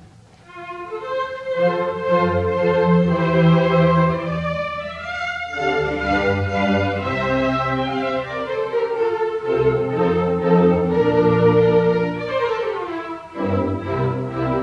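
A chamber orchestra plays classical music with the strings to the fore. It starts about half a second in.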